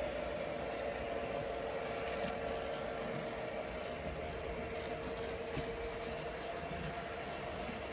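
O-gauge three-rail model trains running past, a steady hum of motors and wheels on the track with a few faint clicks.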